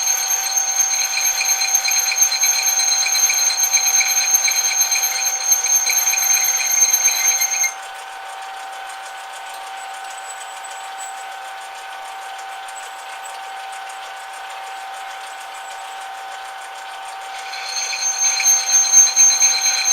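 Metal lathe running with a steady whine. A louder, higher-pitched whine over it stops suddenly about eight seconds in and builds back near the end.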